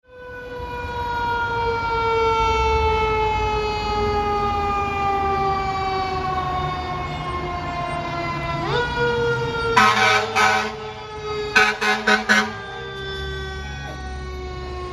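Fire engine siren as a single wailing tone that winds slowly down in pitch, swoops sharply back up about nine seconds in, and starts falling again. A long horn blast sounds just before ten seconds in, followed about two seconds later by a quick string of short blasts, with the truck's engine rumbling underneath.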